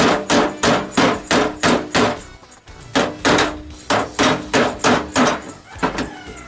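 Hammer blows on the thin sheet-steel spring-clip tab of a 1963 VW Beetle decklid, beating the bent tab back into shape. Steady strikes about three a second, each with a metallic ring from the panel. The strikes pause briefly about two seconds in, then resume and grow fainter near the end.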